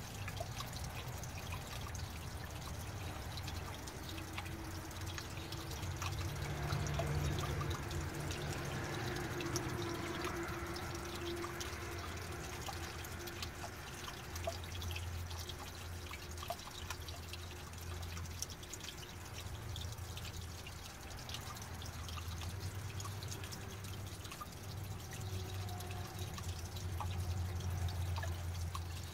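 Small water fountain spout dripping and trickling steadily, with many small drops falling throughout.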